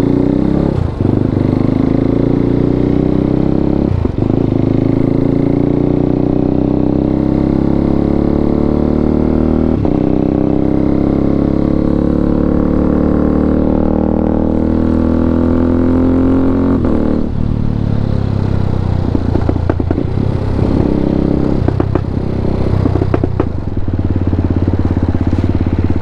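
KTM RC 390's single-cylinder engine through an Akrapovic full-system exhaust, pulling hard up through the gears: the note rises, breaks briefly at each upshift about one, four and ten seconds in, then climbs in one long pull. About seventeen seconds in it comes off the throttle and runs unevenly, with several short breaks.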